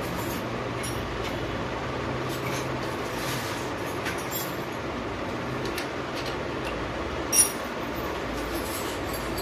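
Light clicks and clinks of a plastic bicycle pedal and metal crank arm being handled during assembly, with one sharp clink about seven seconds in, over a steady hum.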